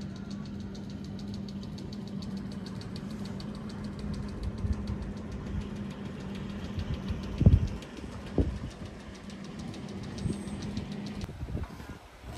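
An engine idling with a steady hum and a fast, even ticking, which stops about eleven seconds in. Two loud thumps come a little after the middle.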